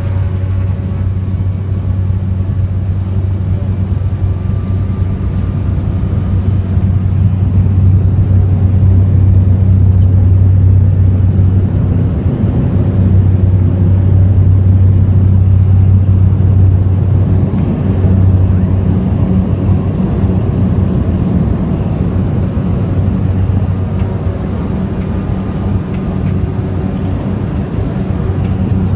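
Engines of a small airliner at full power for takeoff, a loud, steady low drone, with a thin high whine that rises over the first few seconds and the drone swelling a little in the middle.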